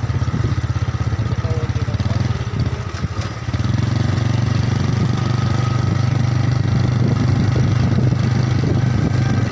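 Small motorcycle engine running under way, a steady low sound with rapid firing pulses. It eases off briefly about three seconds in, then picks up and holds steady, a little louder.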